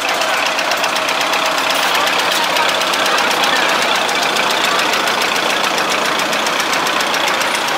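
Engine of an antique Minneapolis-Moline tractor running as it drives slowly past, with a steady rapid firing beat and crowd chatter under it.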